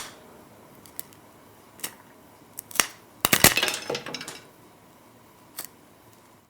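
Popcorn kernels popping: sparse, irregular single pops, with a quick burst of several pops about three and a half seconds in and one last pop near the end. The long gaps between pops mark the tail end of the popping.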